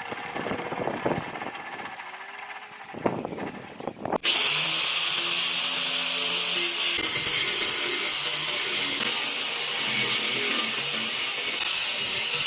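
Angle grinder started about four seconds in, then running loud and steady with a high whine, after a few softer knocks and handling sounds.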